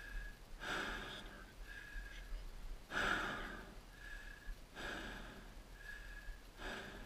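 Heavy breathing of an exhausted person close to the microphone, catching his breath after hard exertion: a long, noisy breath about every two seconds.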